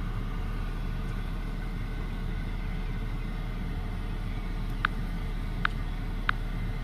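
Steady low hum of a parked car idling, heard from inside the cabin, with three short high-pitched ticks in the second half.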